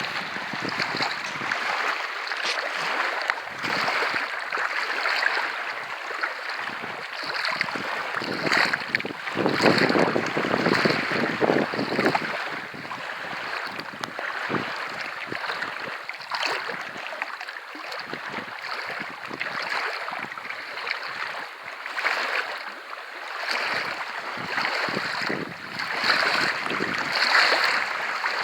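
Small waves lapping irregularly at a loch shore, with wind buffeting the microphone that swells most strongly about ten seconds in.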